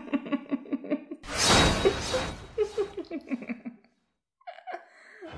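Rapid, drawn-out 'ha-ha-ha' laughter that fades out over about four seconds. A loud burst of crashing noise cuts in about a second in. Two short faint sounds come near the end.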